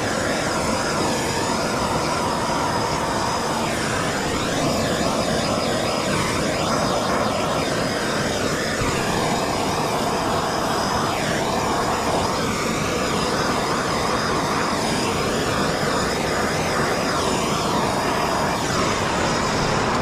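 Handheld Bernzomatic gas torch burning with a steady hiss as its flame is played over faded plastic.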